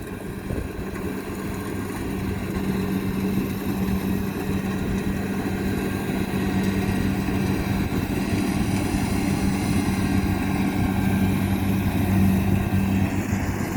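Engine of rice-harvesting machinery running steadily, a constant low hum that grows a little louder in the first few seconds.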